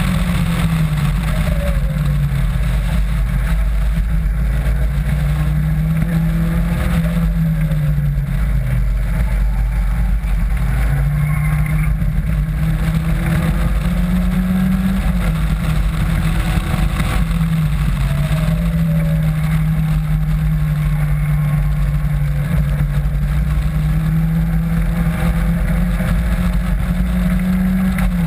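Caterham Seven's four-cylinder engine heard from the open cockpit at speed on track, its note rising and falling several times with throttle through the corners, over a constant rush of wind and road noise.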